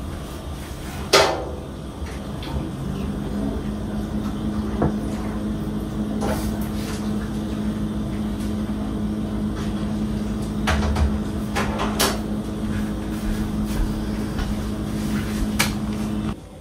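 Kitchen clatter at a stove: several sharp knocks of cookware or cabinet doors, the loudest about a second in. Under them a steady hum comes on about three seconds in and stops suddenly near the end.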